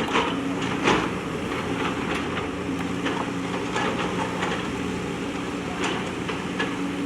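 A backhoe loader's diesel engine running steadily under work, with scattered knocks and clatter over it; the loudest knock comes about a second in.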